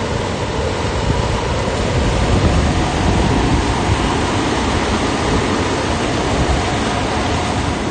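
A house fully engulfed in flames, burning with a steady, loud rushing noise.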